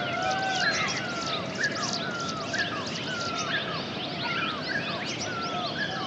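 Dense chorus of many birds calling over one another, short swooping notes repeating over and over above a steady background hiss.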